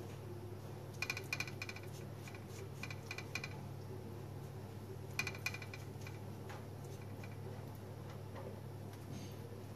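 Quick runs of light clinks from a utensil knocking against a ceramic bowl of pizza sauce, in three bursts: about a second in, again around two to three seconds in, and a little after five seconds. A steady low hum runs underneath.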